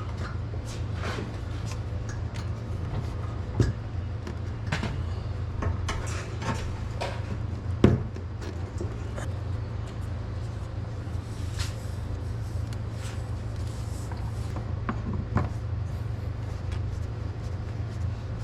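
A steady low engine drone, with scattered knocks and clunks over it, the loudest about a third of the way in and again near the middle.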